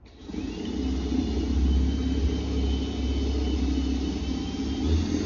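Electric drill starting suddenly and running steadily with a low hum as its bit bores through a drywall-and-insulation wall.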